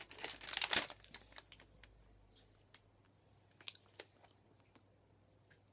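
A person biting and chewing a crunchy Reese's Rounds biscuit close to the microphone. The crunching is loudest in the first second, then goes on as a few softer, scattered crunches.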